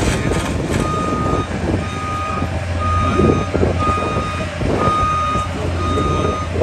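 Heavy equipment's backup alarm beeping steadily, about one high beep a second, over a diesel engine running.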